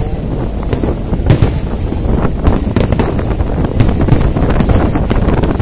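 Strong wind buffeting the microphone, with several sharp cracks of fireworks bursting at irregular intervals.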